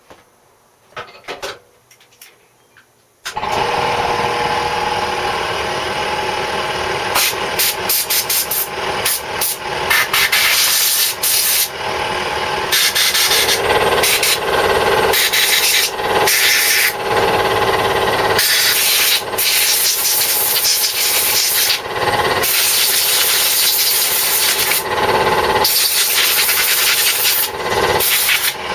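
Compressed air from an air blow gun blowing out the cleaned carburettor of a Briggs & Stratton mower engine. It starts suddenly about three seconds in as a loud, steady hiss, then comes in many short blasts as the trigger is pulsed.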